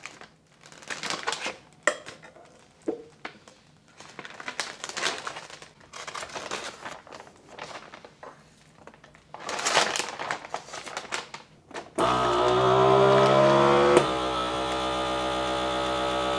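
A plastic vacuum-sealer bag rustling and crinkling as it is handled. About twelve seconds in, a FoodSaver vacuum sealer starts and its pump runs with a steady hum that drops in pitch as it draws the air out of the bag, with a click about two seconds later.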